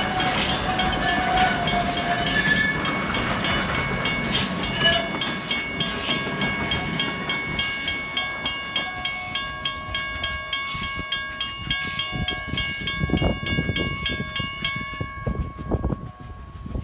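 WRRS mechanical level crossing bell ringing with rapid, evenly spaced strikes, while the last carriages of a passenger train rumble over the crossing. Once the train has gone the bell rings on alone, then stops near the end.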